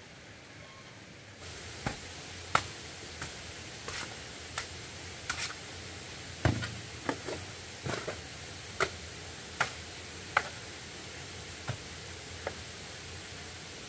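A series of irregular sharp knocks and taps, roughly one or two a second, over a steady hiss, with one heavier thud about halfway through.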